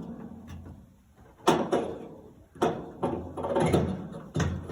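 Needle-nose pliers working at a plastic tri-ring on a dryer's drum support roller shaft: a run of sharp clicks and scraping, with the loudest clicks about a second and a half in and again about a second later.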